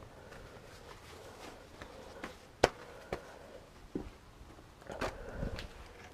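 Scattered light knocks and clicks of objects being handled, with one sharper knock about two and a half seconds in and a short rustle near the end.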